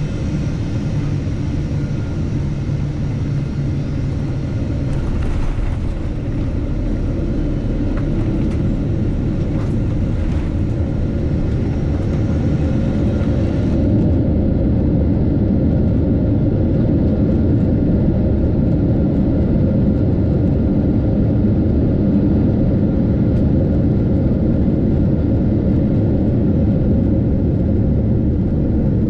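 Cabin noise of a Boeing 777-200 taxiing: the steady low rumble of the idling engines and the rolling landing gear.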